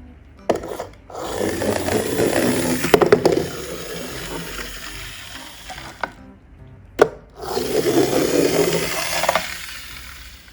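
Toy cars rolling down a ramp, heard twice as a rumbling roll. Each run starts with a sharp knock, swells, then fades away.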